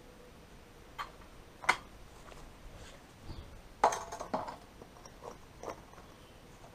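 Concrete paving blocks being pushed together by hand on a sand bed, clacking against each other in a few short, sharp knocks, with a small cluster of them midway.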